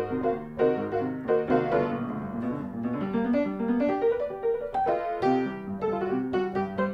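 Background piano music, a steady flow of notes with no break.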